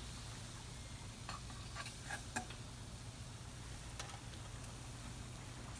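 Faint sizzle of coral mushrooms frying in oil in a pan, over a steady low hum. A few light clicks and taps come around two seconds in and once more about four seconds in.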